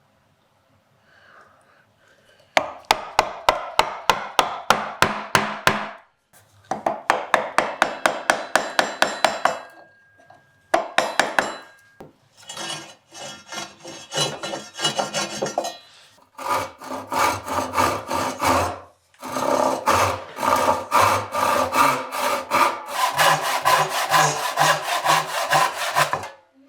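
Hand tool working wood in quick rhythmic rubbing strokes, about four a second, in several bursts of a few seconds with short pauses between them.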